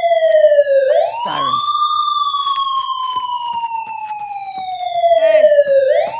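Police siren wailing: its pitch jumps up quickly about a second in, falls slowly for about five seconds, then jumps up again near the end.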